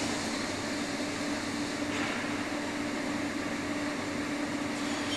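Compressed air rushing steadily into a CNC plasma water table to raise the water level under the sheet, with a steady hum underneath.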